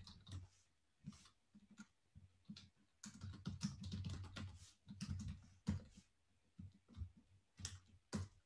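Faint typing on a computer keyboard: scattered keystrokes, with a quick run of them from about three to five and a half seconds in.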